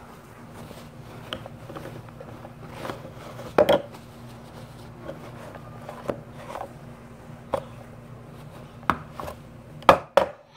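Plastic hamster-cage tube parts handled and wiped dry with paper towel: scattered knocks and rustles, with the loudest knock about three and a half seconds in and a few sharp knocks near the end, over a steady low hum.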